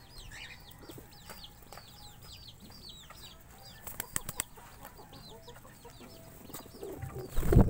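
Backyard chicks peeping: many short, high, falling chirps repeat throughout. There are a few sharp clicks, likely pigeons pecking grain on the rock, about four seconds in, and a loud low thump near the end.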